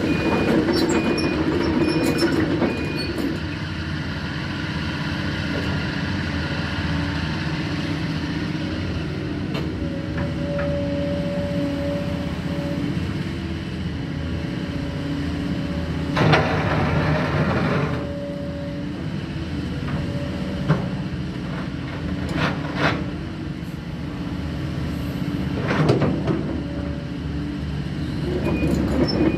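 2007 Sumitomo SH220LC-3 excavator's diesel engine running under hydraulic load, with a steady whine, as the upper structure slews round and the boom lifts. A high beep repeats for the first few seconds and again at the very end, and sharp squeals sound a few times in the second half.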